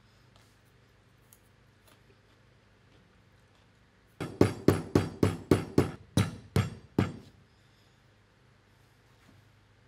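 Stainless steel cylinder of a homemade BB gun knocked about nine times in quick succession, roughly three knocks a second, each with a short metallic ring.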